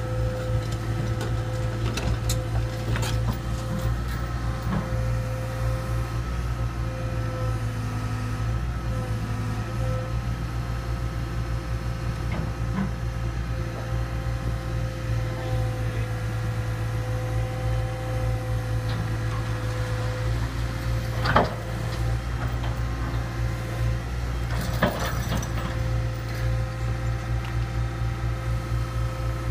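Hyundai crawler excavator's diesel engine running steadily, with a steady whine over the rumble, as it holds a steel trench-shoring panel on chains. Two sharp knocks come near the end, about three seconds apart.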